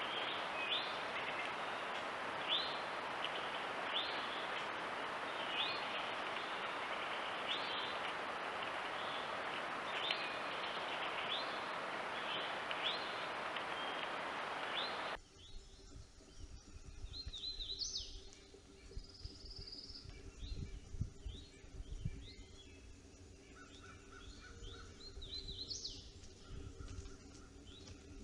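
Birds calling outdoors: a short chirp repeats about every second and a half over a steady hiss. After a sudden change about halfway, the hiss is gone and scattered songs of several birds continue, with occasional low thumps.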